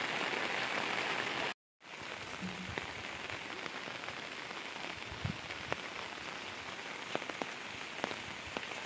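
Steady rain falling, with single drops ticking close by. The sound drops out for a moment about one and a half seconds in, then goes on a little quieter.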